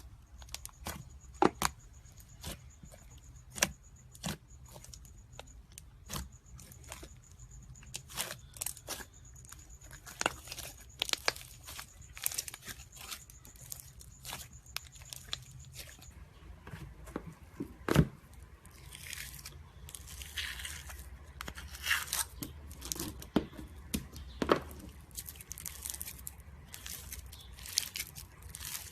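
Handling noises: scattered sharp clicks and taps, then rustling, crinkling sounds through the second half.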